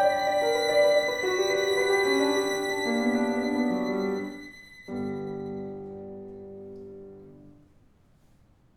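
Chamber trio of violin and piano closing a piece: a falling run of held notes, then a final chord about five seconds in that rings and fades away.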